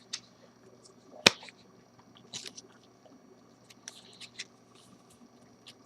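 Faint rustles and taps of trading cards being handled, with one sharp click a little over a second in.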